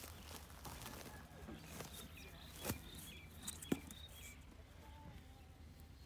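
Faint outdoor background with two light, sharp knocks about a second apart near the middle as a round cardboard cover is handled and set over a hole in sand, and a few faint high chirps between them.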